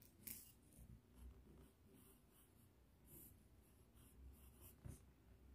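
Faint scratching of a ballpoint pen writing numbers on a textbook page, in short strokes.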